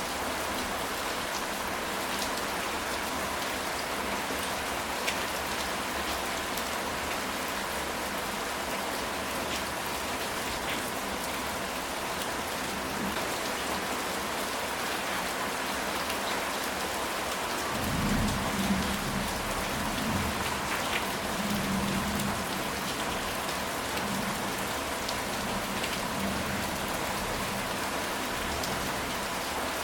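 Steady rain falling on a ceramic tile roof, a dense hiss of drops. About two-thirds of the way in, a low rumble of thunder swells for a few seconds and then fades back into the rain.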